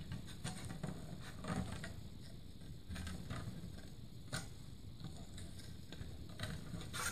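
A Speedy Sharp carbide sharpener scraping the burr off a drilled hole in a thin soft-steel taping knife. It makes faint, irregular scrapes and clicks, with a louder one about four seconds in and another near the end.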